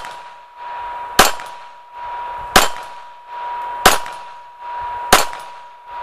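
Glock 42 pistol in .380 ACP fired four times at a slow, even pace, about one shot every 1.3 seconds, each crack followed by a lingering echo. A steady high tone sounds under the shots.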